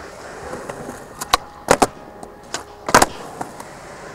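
Skateboard hitting concrete: a run of sharp wooden clacks and slaps from the deck and wheels, some in quick pairs, the loudest about three seconds in.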